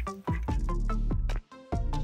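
Background music with a steady drum beat and pitched notes, briefly cutting out about one and a half seconds in.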